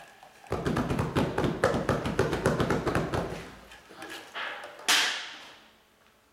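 Rapid rattling clatter of hard objects, many quick knocks a second for about three seconds, then a single sharp bang with a bright ringing tail.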